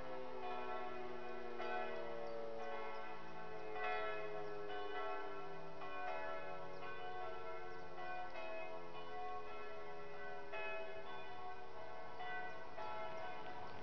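Church bells ringing in repeated strikes, over the fading tone of an E57 electromechanical motor siren that falls slowly in pitch as it winds down.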